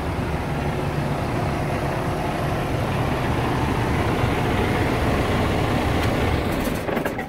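Diesel engine on a Freightliner Cascadia semi truck idling steadily, heard through the open cab door; the sound cuts off abruptly near the end.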